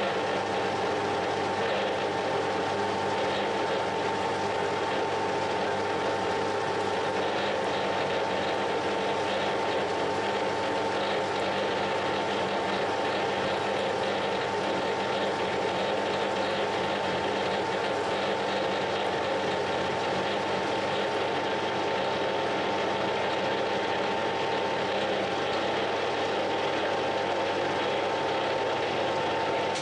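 Metalworking machine tool running steadily under power, a constant motor and gear hum with a steady high whine.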